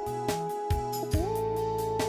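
Background music: held synth-like tones that slide between pitches over a steady, quick beat.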